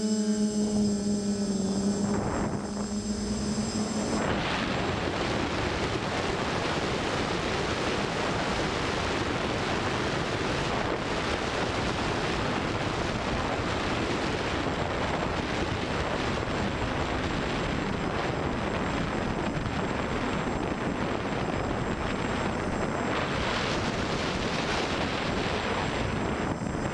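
Brushless motors and propellers of an FPV multirotor in flight. A steady buzzing tone for the first few seconds gives way, about four seconds in, to a constant rushing noise of props and wind.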